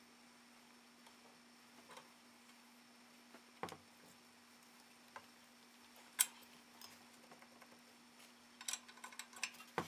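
Faint, scattered metal clicks and taps of a tool tightening down the non-drive-side crank arm, with a quicker run of small clicks near the end, over a steady low hum.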